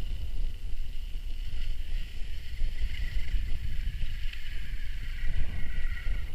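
Heavy wind buffeting on the microphone while riding an electric mountain bike, a loud gusting rumble, with a steady high whine running underneath that wavers a little in pitch.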